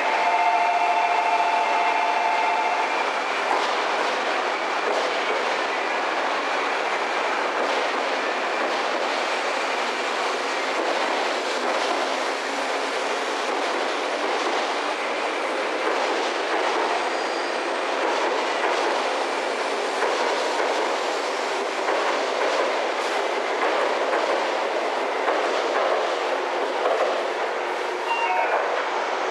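A JR East 200 series Shinkansen train running slowly past along the platform, making a steady rolling noise of wheels on rails that carries on evenly until its last car clears.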